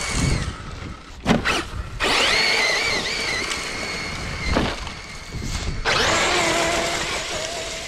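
Traxxas Maxx Slash RC truck on a 6S battery running hard: its brushless motor and drivetrain whine at a high pitch that rises and falls with the throttle, over the hiss of the tires spinning in dirt and gravel. The whine cuts out a few times as the throttle is let off, and there is a sharp knock about a second and a half in.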